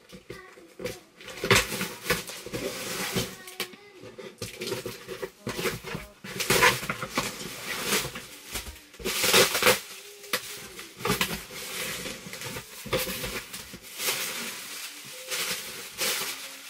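Packaging handled while a box is unpacked: plastic and cardboard rustling and crinkling in irregular bursts.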